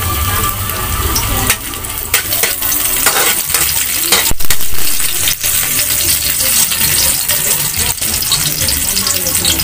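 Chopped garlic sizzling in hot oil in a metal wok, with a metal spoon scraping and clinking against the pan as it is stirred.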